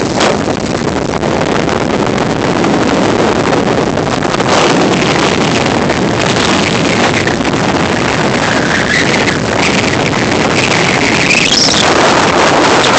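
Hurricane Irene's wind rushing past and buffeting a phone microphone, loud and steady, with a few higher whistling tones gliding up and down in the second half.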